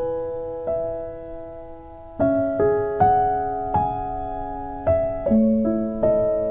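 Slow piano music: single notes and chords struck about once a second and left to ring out and fade.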